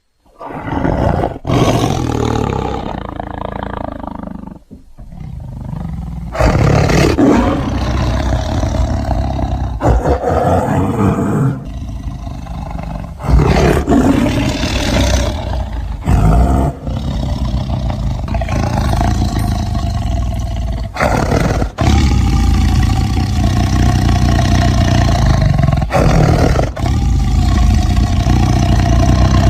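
Tiger roaring in a run of deep, rough roars, with abrupt jumps between clips every few seconds.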